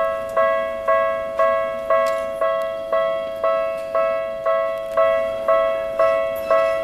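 Japanese railway level-crossing warning bell ringing at an even pace, about two strikes a second, each a two-tone ding that fades before the next strike: the crossing's alarm warning that a train is coming.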